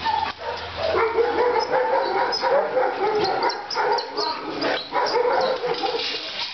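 Many kennelled dogs barking, yelping and whining at once in a continuous, overlapping din.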